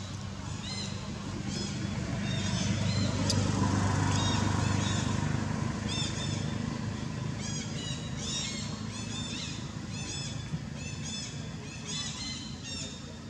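A motor vehicle passing on the road: a low rumble swells to its loudest a few seconds in, then fades. Throughout, birds call with short, high, repeated chirps, one or two a second.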